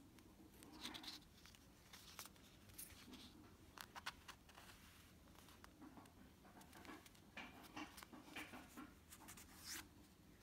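Faint rustling and scattered light clicks of paper sticker sheets being handled and slid about.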